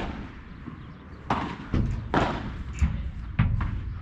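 Padel rally: the ball struck by solid padel rackets and bouncing off the court and glass walls, giving an irregular series of sharp knocks and thuds.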